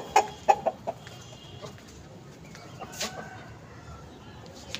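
Poultry clucking: several short clucks close together in the first second, then quieter calls, with one sharp click about three seconds in.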